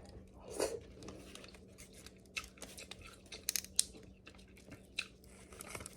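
Quiet eating sounds from king crab legs: soft chewing with scattered small clicks and crinkles of shell being handled, a few sharper clicks about midway and near the end.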